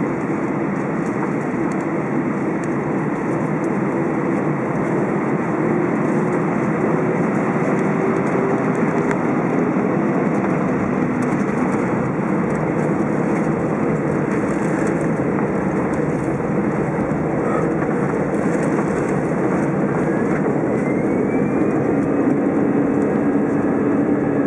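Cabin noise of an Airbus A320 on the ground: steady jet-engine rumble and hum with the roll of the aircraft moving along the runway, slowly growing louder. A faint rising whine comes in about twenty seconds in.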